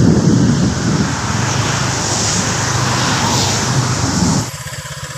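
Motor scooter on the move, its engine running under heavy wind noise on the microphone. About four and a half seconds in, the wind and engine noise drop off sharply as it slows.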